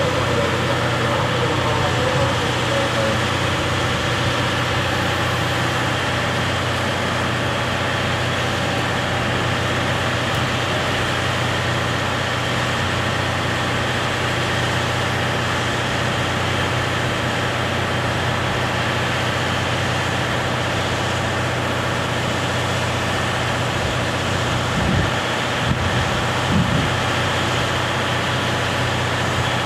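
KiHa 183 series diesel railcars idling at a station platform, a steady low diesel drone, with a few short louder bumps near the end.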